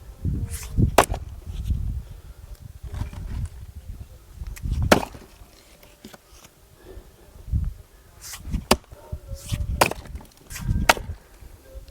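Axe splitting oak firewood: sharp cracking strikes a few seconds apart, each with a dull thud as the blade bites and the log splits, three in quick succession near the end.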